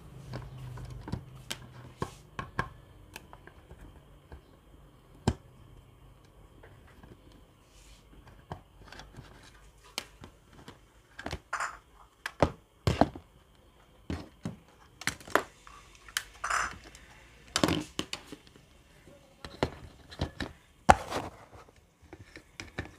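Scattered clicks, taps and knocks of a hand screwdriver and a plastic power-strip housing being handled on a workbench as the strip's cover is unscrewed and lifted off. A low hum fades out in the first few seconds.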